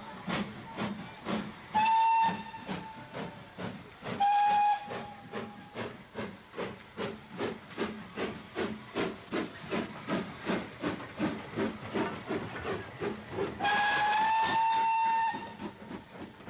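Great Western steam locomotive getting under way: the exhaust chuffs in regular beats that quicken steadily. Its whistle gives two short blasts about two and four seconds in, then a longer blast near the end.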